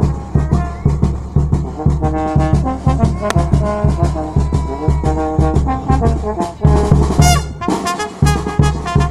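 A small live brass band plays: trombones carry the tune over a bass drum beaten with a mallet in a steady rhythm.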